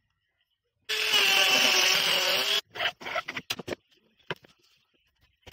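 A power tool runs on wood for under two seconds and cuts off suddenly. A quick run of knocks follows, then two single sharp taps of a hammer on a chisel in wood.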